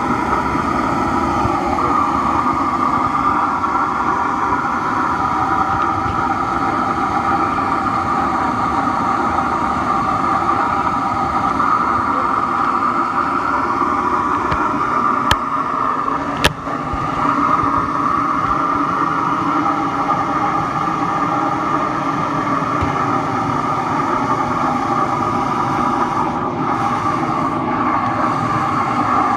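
Blower-fed burner of a drum furnace running steadily, a constant rush of air and flame while bronze melts in the crucible. Two sharp clicks about halfway through, a second apart.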